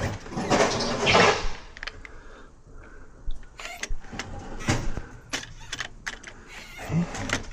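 Metal clicks, knocks and rattles of a UPVC door lock gearbox mechanism being handled and worked, with a longer scraping stretch near the start followed by scattered sharp clicks.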